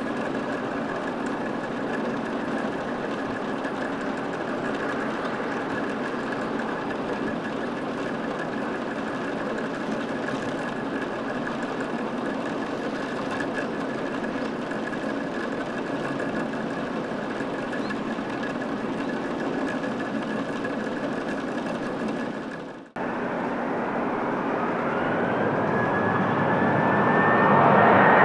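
Airbus A321neo jet engines running with a steady whine and a high tone over a noisy rush. After a sudden cut, a Boeing 737-800's jet engines grow steadily louder with a rising whine.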